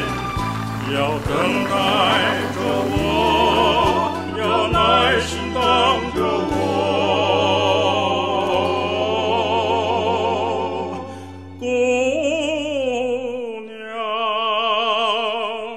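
A barcarolle sung operatically with wide vibrato over orchestral accompaniment. Near the end the low accompaniment drops out and the voice holds a long note.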